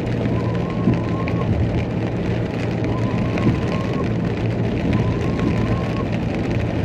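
Car driving in heavy rain on a wet road: a steady low engine and tyre hum, with rain crackling and ticking on the car's body and glass.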